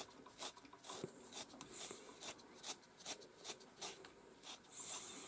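Metal stripping knife raking through a miniature schnauzer's wiry coat on top of the skull, each stroke a short dry scratch of hair being pulled out, about two to three strokes a second: hand-stripping the dead coat.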